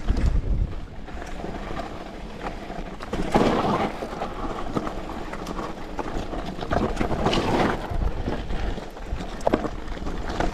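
Mountain bike rolling down a rocky trail: tyres crunching over loose stones and the bike rattling, with wind buffeting the microphone. Two louder rough stretches come about three and seven seconds in.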